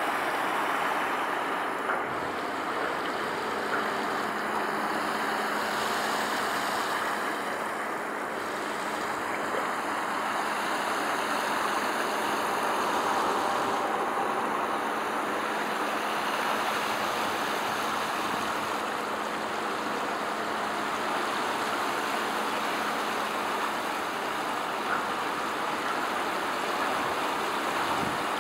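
Steady outdoor background noise, an even rushing wash like water and distant traffic, with a faint low hum under it.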